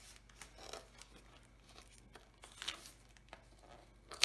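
Clear plastic wrapping crinkling and rustling in short bursts as hands pull at a tightly taped package, with one sharp click near the end.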